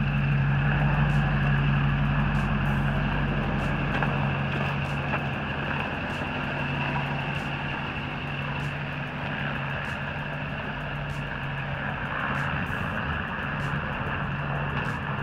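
1983 Chevrolet K10 pickup's engine running as the truck drives off slowly on a test drive with its newly installed 700R4 automatic transmission. The steady engine hum is loudest for the first few seconds and then eases slightly as the truck moves away.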